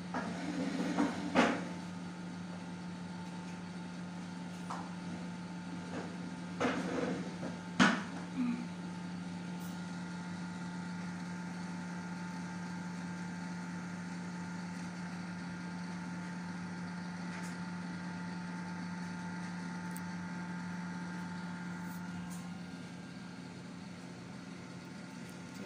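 Steady low hum of a running kitchen appliance. A few rustles and two sharp knocks come in the first eight seconds, and the hum drops slightly in level near the end.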